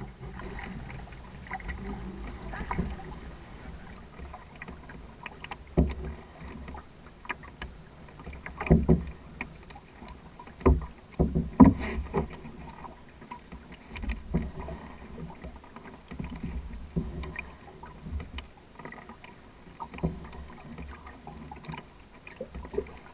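Canoe under paddle: water sounds with irregular sharp knocks, some of them loud, over a low rumble.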